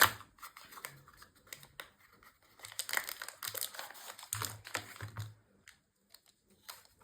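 Packaging being handled and opened by hand: a run of small clicks, crinkles and rustles of box and wrapping, busiest in the middle and dying down near the end.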